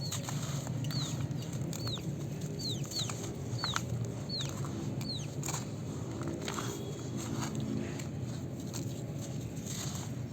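A bird calls in the background: a run of about seven short, falling chirps in the first five seconds. Under it are scattered sharp taps and crunches of gritty red dirt crumbling, and a steady low hum.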